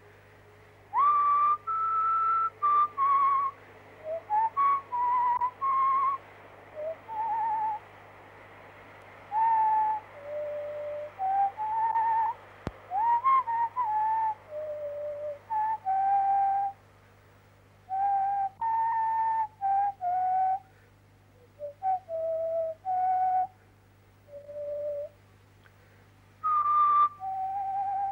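A person whistling a slow tune in separate held notes with a slight waver, with short pauses between phrases, over a faint steady low hum.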